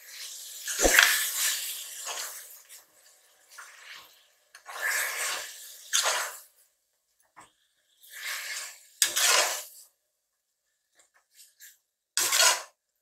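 Slotted metal spatula scraping and stirring thick onion-tomato masala in an aluminium pressure cooker. It comes in four bursts of strokes, with a knock against the pot about a second in.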